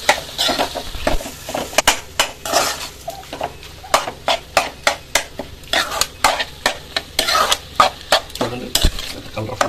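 Steel spoon stirring and scraping mashed potato fry around a metal kadai, the strokes clinking against the pan about twice a second, with the potatoes sizzling in oil over a low flame.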